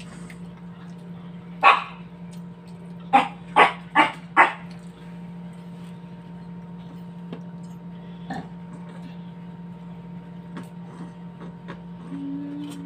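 A dog barks once, then four times in quick succession about a second and a half later, over a steady low hum.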